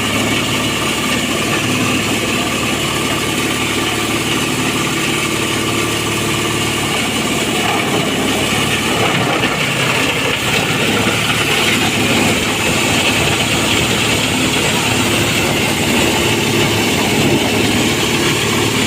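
Engine-driven cassava-stem chopper and grinder machine running steadily, a constant engine hum under a dense rushing noise that grows rougher and more uneven about halfway through.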